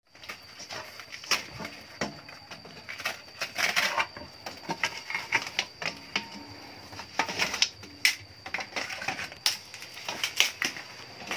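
Knives shaving and splitting bamboo strips: irregular clicks, cracks and short scrapes of blade on wood.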